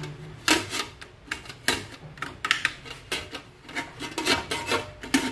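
Stainless-steel pressure cooker lid being fitted and locked: a run of about a dozen irregular metal clicks, clacks and scrapes as the lid is set on the pot and its locking handle is worked into place.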